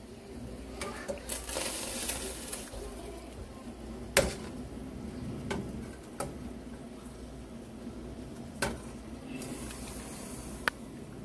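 Quiet kitchen handling sounds: a few sharp clicks of a ceramic bowl and utensils being set down and moved, about four seconds in and again twice near the end, with a soft hiss twice.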